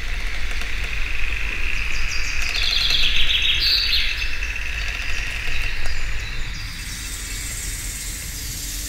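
Wild birds singing and chirping outdoors, the calls loudest a little before the middle, over a steady low rumble.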